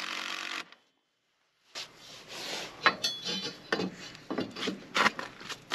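Cordless drill running briefly as it drives a screw down into the wooden frame, stopping abruptly about half a second in. After a second-long gap, scattered knocks, taps and scraping follow as a speed square and lumber are handled against the wood framing.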